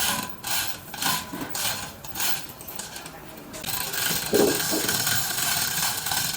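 Hand woodworking on wood: a series of short scraping strokes, then a steadier scraping noise from about halfway through.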